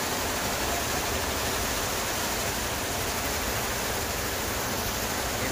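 Computerised multi-head embroidery machines running: a steady, even mechanical noise.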